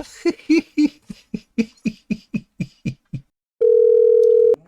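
A quick run of short pulses, about four a second, for the first three seconds. Then a loud, steady single-pitch telephone tone that lasts about a second and cuts off sharply near the end.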